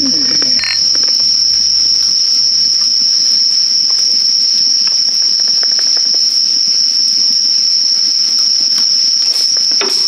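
A steady, unbroken high-pitched chorus of night insects such as crickets, with the light crackle of a wood campfire beneath it. A short glassy clink about half a second in, as beer glasses touch in a toast.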